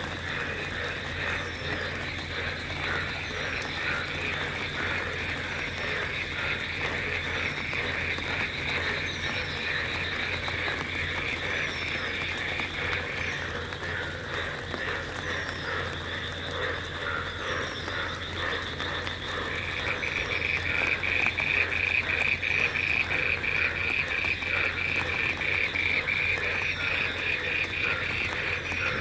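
A dense chorus of frogs croaking, a rapid pulsing that swells louder about two-thirds of the way through, over a faint steady low hum.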